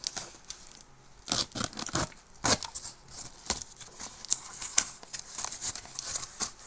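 A taped cardboard parcel being opened by hand: packing tape and cardboard tearing in short, irregular rips, with some crinkling of wrapping.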